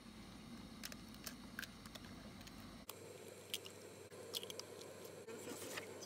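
Hen's eggs being cracked and their shells broken open over a bowl: several short, sharp cracks and taps.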